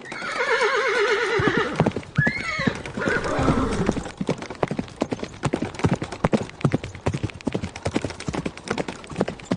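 A horse whinnying, one quavering call that falls in pitch, with a short second call about two seconds in, followed by a long run of hooves clip-clopping on hard ground.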